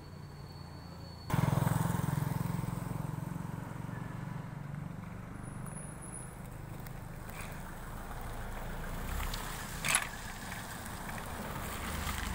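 Road traffic: vehicles passing close on the street, their engines and tyres making a steady rumble that starts suddenly about a second in. A car comes close near the end.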